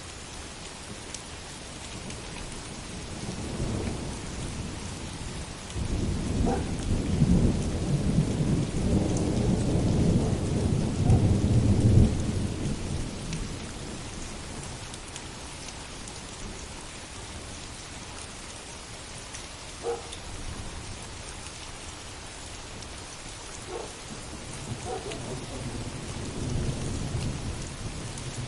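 Steady heavy rain with rolling thunder: a long, loud rumble builds about six seconds in and fades after about twelve seconds, and a softer rumble rises near the end.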